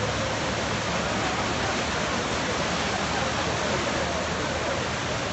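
Muddy floodwater rushing fast through a street, a steady, unbroken noise of moving water.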